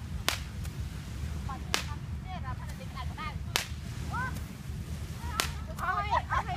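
Sharp cracks, one about every second and a half to two seconds, with short chirping glides between them that crowd together near the end, over a low steady rumble.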